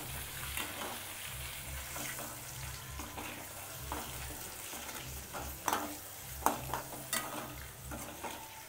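Hard-boiled eggs frying in shallow oil in a metal kadai, a steady sizzle, with a metal spatula scraping and knocking against the pan a few times in the second half as the eggs are turned.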